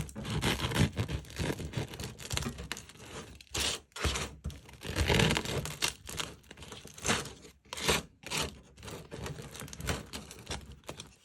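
Air-fryer-crisped bread being sliced with a knife: a run of irregular crunching, scraping strokes through the crust.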